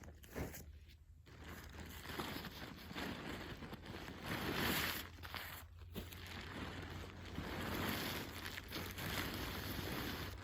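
Rustling and crinkling of camping gear being handled, with short pauses about a second in and again near six seconds.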